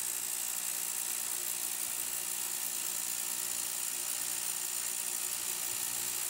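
Ultrasonic cleaning tank running, a steady hiss over a faint low hum, as it degreases polished aluminium parts of polishing compound.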